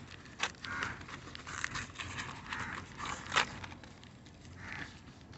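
Corrugated cardboard wrapping being torn and pulled off a plastic shuttlecock tube by hand, giving a few sharp crackles and taps, the loudest about three and a half seconds in.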